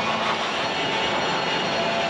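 Woodworking mill machinery running steadily: an even whirring drone with several held tones.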